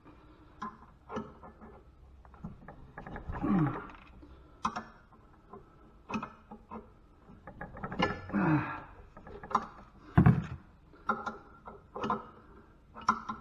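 Combination wrench working the rusted bolts of an old farm water pump: repeated metal clicks and scrapes as the wrench is turned and refitted, with two short falling-pitch squeaks and a louder knock near the end.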